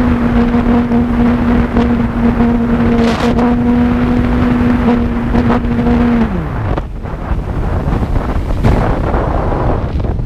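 Heavy wind buffeting the microphone over a steady aircraft motor hum. About six seconds in, the motor winds down sharply and falls away, leaving only the wind.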